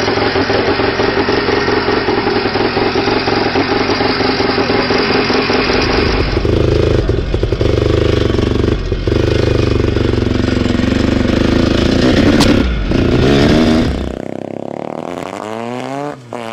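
Hercules Wankel dirt bike's rotary engine running hard and steady, then under load while the bike is ridden. About fourteen seconds in it changes to a lighter motorcycle engine note rising in pitch as a bike accelerates, with a gear change near the end.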